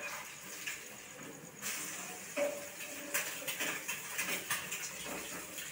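Metal tongs scraping and tapping in a frying pan while food fries, a run of irregular light clicks and scrapes over a steady hiss.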